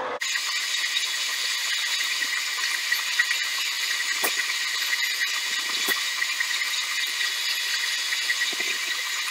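Harbor Freight mini lathe running while a number 11 twist drill in a tailstock drill chuck is fed into the spinning workpiece: a steady high whine over an even hiss of the drill cutting.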